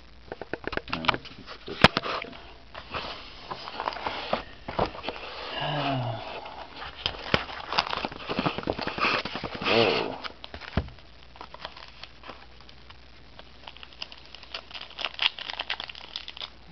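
Sealed trading card packs being pulled out of a cardboard hobby box and stacked, their wrappers crinkling and rustling with many sharp clicks and taps. The loudest is a single sharp click about two seconds in.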